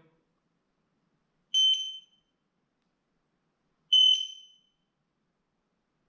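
X-Sense wireless smoke alarm giving two short, high-pitched beeps about two and a half seconds apart while alarms are being wirelessly interlinked.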